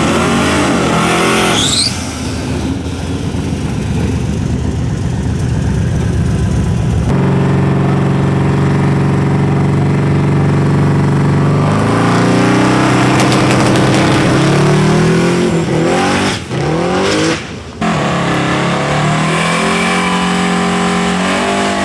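A twin-turbo 427 small-block Ford V8 in a Mustang drag car runs at high revs while the rear tyres spin in a burnout. It then accelerates away with revs rising in steps. The sound breaks off abruptly a few times where takes are cut together.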